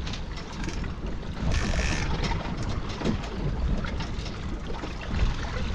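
Outboard motor running as the boat trolls, with wind buffeting the microphone and water washing past the stern; a brief hiss about one and a half seconds in.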